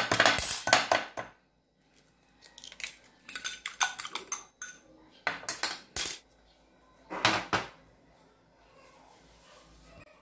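An egg knocked and cracked against the rim of a ceramic bowl, a run of sharp knocks in the first second, followed by three short bursts of clinking and clattering of dishware.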